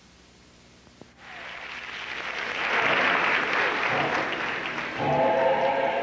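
Low room hiss and a click, then theatre audience applause swells up about a second in. About five seconds in, choral singing starts as the music for the dance piece.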